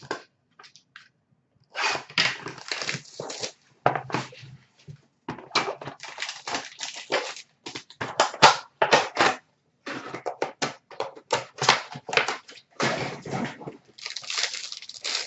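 Hockey card packs being opened and the cards handled by hand: irregular bursts of crinkling and rustling packaging and cards, with short pauses between.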